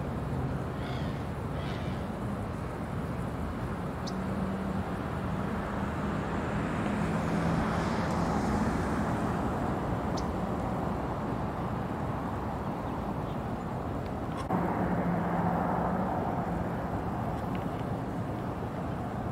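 Outdoor background of road traffic: a steady rumble with a low hum that swells as a vehicle passes about eight seconds in, and steps up again suddenly near the end. A few faint, short high ticks sound over it.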